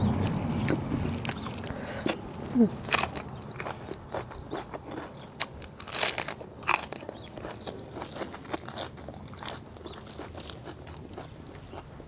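A person eating close to the microphone: irregular crunching bites and wet chewing, with small clicks and crackles.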